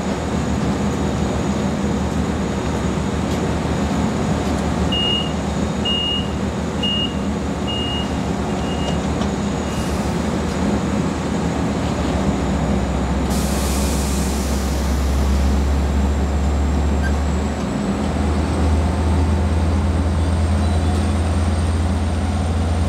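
Diesel locomotive engine running steadily with a low drone that steps up about halfway through and again a little later. A short burst of air hissing comes just past halfway, and six high beeps about a second apart sound early on the first half, fading as they go.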